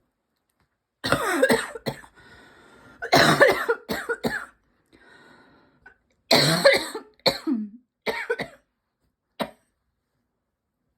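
A person coughing repeatedly in several fits, each a run of two or three coughs, over about nine seconds. It is a persistent cough from a constantly tickly throat and lungs.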